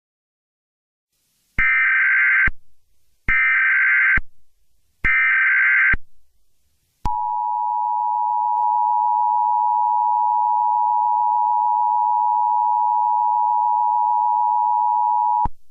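Emergency Alert System SAME header: three short bursts of warbling digital data tones, each about a second long, then the EAS attention signal, a steady two-tone beep of 853 and 960 Hz held for about eight seconds before cutting off. This is the standard opening of an emergency alert broadcast, ahead of the spoken message.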